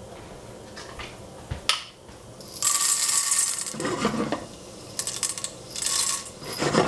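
Dried popcorn kernels poured from a small glass jar into a stainless steel saucepan, rattling and clattering onto the metal in several separate pours, the longest lasting about a second near the middle, with a few single clicks before it.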